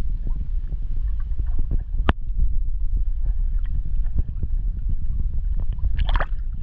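Sound picked up by a camera held underwater: a steady low rumbling wash of water against the housing, with scattered clicks and crackles, one sharp click about two seconds in and a short burst of crackling near the end.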